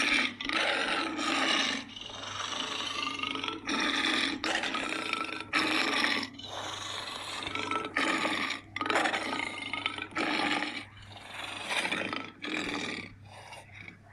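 Monster roar sound effects: a rapid string of harsh roars that starts abruptly, each lasting from under a second to about a second and a half.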